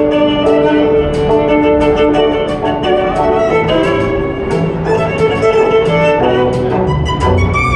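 Violin and cello playing a melody together with long bowed notes, over a steady beat of about three clicks a second.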